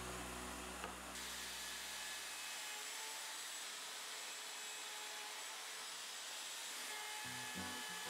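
Plunge router with a small bit cutting grooves into plywood: a steady, fairly quiet high whine and hiss of the spinning bit. Background music fades out early on and comes back near the end.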